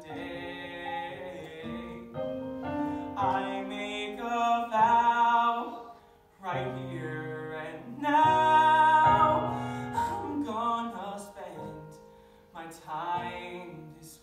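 A man singing a slow musical-theatre ballad live with piano accompaniment, his voice swelling to loud held notes twice.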